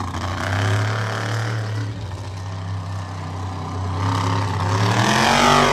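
Monster truck engine running at a steady pitch, then revving up with a rising pitch near the end.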